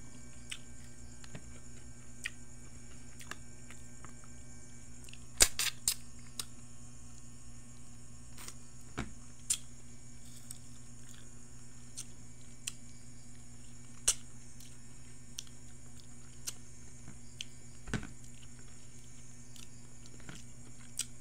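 Quiet eating by hand: scattered clicks and taps of fingers picking rice from a plastic plate, with some chewing, over a steady low electrical hum. The loudest clicks come about five and a half seconds in.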